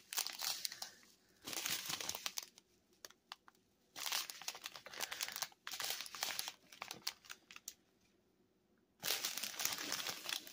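Strip of small clear plastic packets of diamond-painting drills crinkling as it is handled, in several bursts with a short pause near the end.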